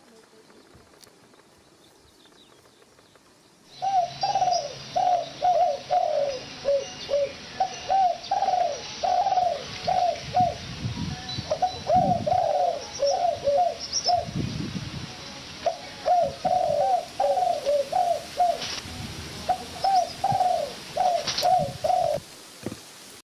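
Pigeons or doves cooing in repeated clusters of short, falling notes, starting suddenly about four seconds in after a near-quiet stretch, with low thumps underneath.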